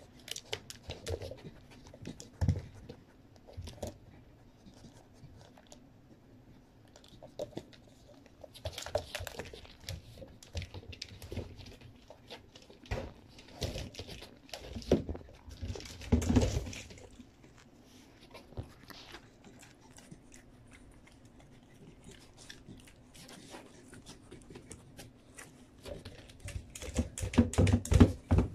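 A beagle nudging rubber KONG treat toys (a KONG Gyro and a classic KONG) around the floor: irregular knocks, clicks and scuffs. There are louder clusters about halfway through and again near the end.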